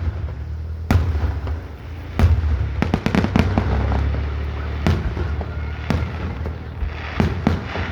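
Aerial fireworks exploding in an irregular series of sharp bangs over a steady low rumble, with a quicker cluster of reports near the end.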